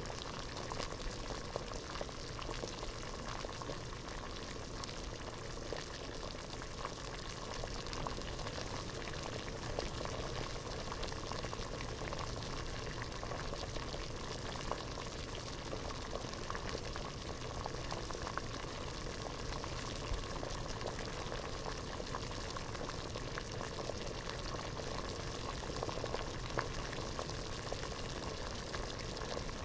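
Water boiling hard in a pot: a steady, dense bubbling made of many small pops.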